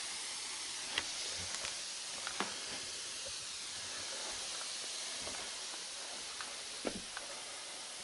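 Steady hiss of steam rising from a damp towel under a hot carpet seaming iron, with a few light knocks, about one second in, near the middle, and near the end.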